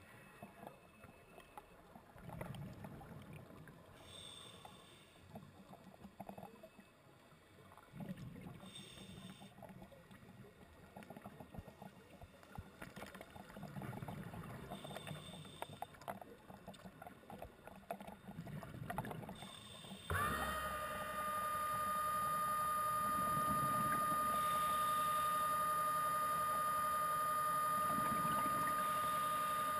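A scuba diver breathes through a regulator, with slow swells of exhaled bubbles. About two-thirds of the way through, the electric motor of a Halcyon diver propulsion vehicle (an underwater scooter) starts up suddenly and then runs with a steady high whine.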